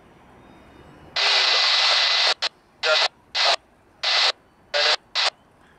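Railroad scanner radio crackling with static: one burst of hiss about a second long, then six short, choppy bursts, like a weak or broken-up transmission opening and closing the squelch.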